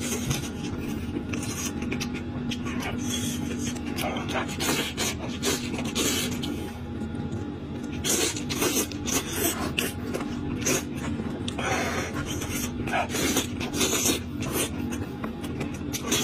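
Close-miked eating: wet sucking, slurping and lip-smacking as meat and marrow are sucked and gnawed off bones by hand, in quick irregular bursts.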